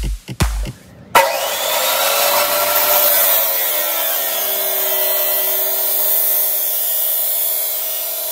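Background music beat for about the first second, then a DeWalt abrasive chop saw cutting through steel bar stock: a sudden loud, steady grinding with the motor's whine dipping a little in pitch as the wheel bites into the steel, then holding steady.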